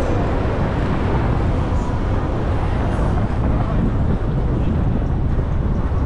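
Steady low rumble of city traffic and road noise from a car driving through the streets.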